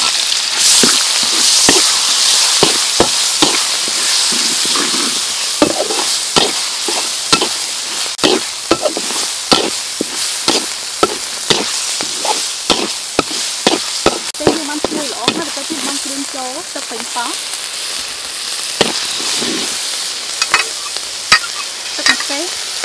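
Minced red chili and garlic sizzling in hot oil in a steel wok. A metal ladle stirs them, clinking and scraping against the wok about once or twice a second. The sizzle is loudest at the start and eases off a little.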